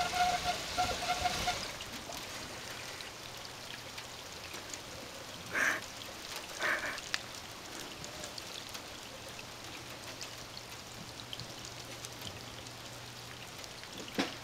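Faint, steady patter and trickle of water over a low steady hum, with a pulsing tone in the first second and a half and two short louder sounds about five and a half and seven seconds in.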